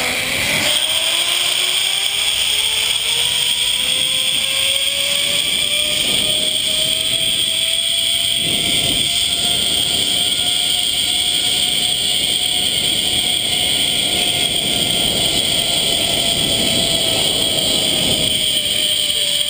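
Zipline trolley's pulley wheels running along a steel cable: a whine that rises in pitch as the rider picks up speed, holds steady, then falls near the end as the trolley slows toward the landing. Wind rushes over the helmet camera throughout.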